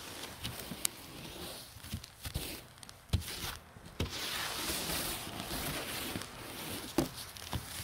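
Snow brush bristles sweeping snow off a car's windshield and hood: a scratchy brushing hiss that grows strong about halfway through, with a few sharp clicks and knocks.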